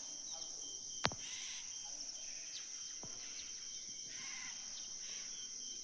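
Steady high-pitched drone of insects, with scattered short bird chirps over it. Two sharp clicks, about one second and three seconds in.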